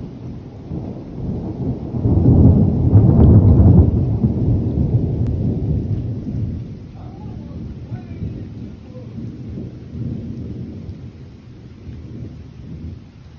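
A long roll of thunder: a deep rumble that swells about two seconds in, peaks over the next two seconds, then rumbles away slowly, with a smaller swell about ten seconds in.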